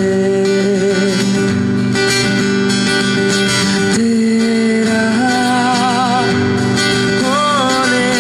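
Live acoustic duo: a man singing into a microphone, holding long notes that waver with vibrato from about five seconds in, over an acoustic guitar accompaniment.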